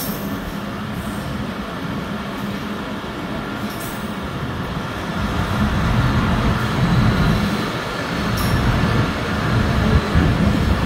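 Jaffar Express passenger coaches rolling in slowly beside the platform as the train arrives, a steady rumble of wheels on the rails that grows louder about halfway through.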